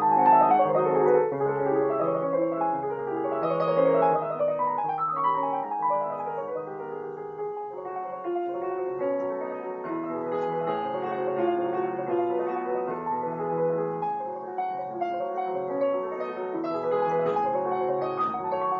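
Alesis Recital 88-key digital piano playing a continuous passage of chords and melody notes in its piano voice.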